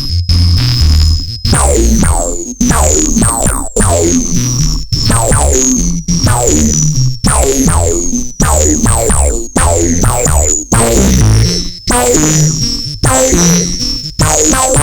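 Electronic synthesizer music from a Blipblox patched into a Eurorack modular synth: a rhythmic run of short notes, each with a downward pitch sweep, over a bass line. A steady high tone cuts off about a second and a half in.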